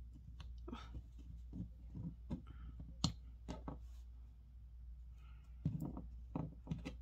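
Small clicks and taps as a mini food-shaped puzzle eraser is pulled apart by hand and its pieces set down on a wooden tabletop, with a sharper tap about three seconds in and a cluster of taps near the end.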